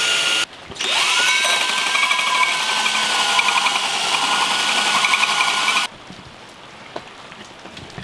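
Power drill cutting a 2 7/8-inch hole with a hole saw through the side of a septic tank riser. It stops briefly about half a second in, spins back up with a rising whine and cuts steadily, then stops about six seconds in as the cut goes through.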